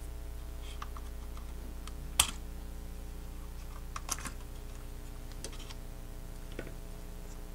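Light plastic clicks and taps from handling a DJI Mini SE drone's folding arm and body, a few scattered clicks with the sharpest about two seconds in, over a faint steady hum.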